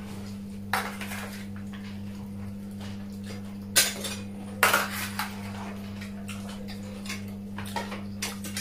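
Metal spoon and fork clinking against plates and a metal serving tray as food is served, with a few sharp clinks about a second in, near four seconds and near five seconds, and lighter ones near the end. A steady low hum runs underneath.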